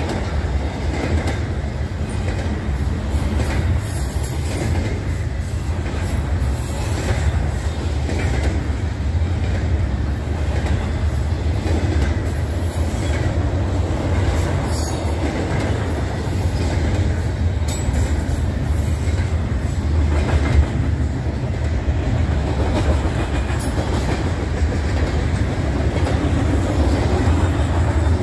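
Intermodal freight train rolling past on steel rails: a steady rumble of wheels and cars, with occasional sharp clacks as wheels cross rail joints.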